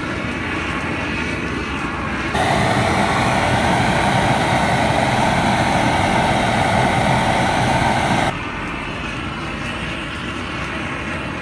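Propane roofing torch burning steadily, a constant rushing noise as the flame heats a buckled steel van wheel rim. It is louder and fuller for about six seconds in the middle, from about two seconds in to about eight.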